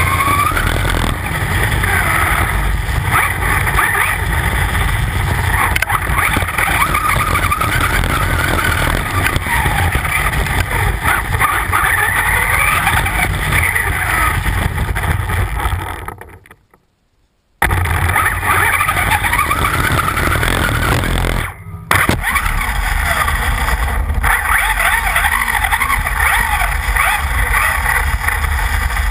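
Onboard sound of a Traxxas Slash 4x4 electric RC truck driving hard: the motor's whine rises and falls with the throttle over a heavy rumble from the tyres and chassis. Just past halfway the sound cuts out almost completely for about a second and a half, then resumes, with a shorter dip a few seconds later.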